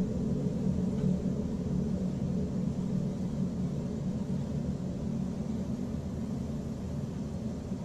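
Low, steady rumbling drone with a faint hiss over it, slowly getting quieter; no distinct events stand out.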